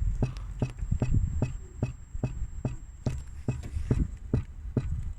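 Regular clicking, about four ticks a second, from under the inlet manifold of a BMW E60 520d diesel with the engine off: the unexplained noise the owner is trying to trace.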